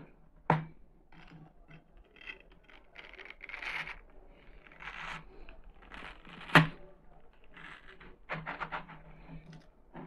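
Watermelon being cut into small pieces by hand on a plastic cutting board: soft scraping and tearing of the wet flesh, with two sharp knocks on the board, the louder one past the middle, and a quick run of light clicks near the end.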